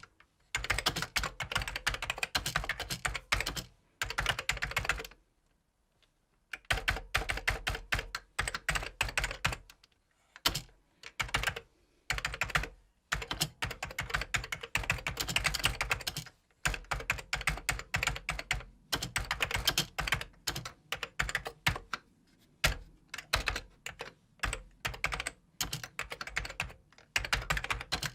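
Typing on a computer keyboard: rapid runs of key clicks in bursts, broken by short pauses, with a few louder single keystrokes.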